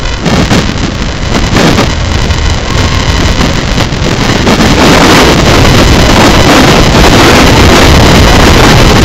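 Wind buffeting the microphone over the rush of water along the hull of a heeled racing sailboat under way, growing louder about halfway through.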